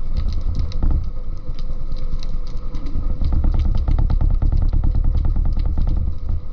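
Underwater sound picked up by a submerged camera: a loud, steady low rumble with scattered sharp clicks, which settle into a fast, even ticking from about three seconds in.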